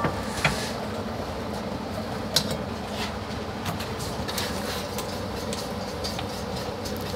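Steady background hum of a working restaurant kitchen, with a few light clinks as a large hammered aluminium pot is tipped and a utensil is used to spoon its simmering broth over the eggplant on the plate.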